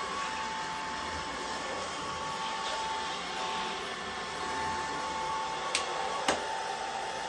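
Tesvor R5 cordless wet-dry vacuum mop running on a hard floor: a steady motor hum with a high whine as the roller head is pushed back and forth. Two sharp clicks about half a second apart near the end.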